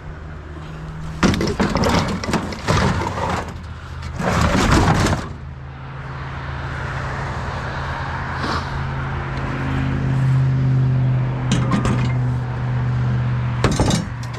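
Truck engine running with a steady low hum, broken in the first five seconds by two loud stretches of clattering and scraping as metal scrap is handled. The engine drone then grows a little louder after about ten seconds, with a couple of short knocks near the end.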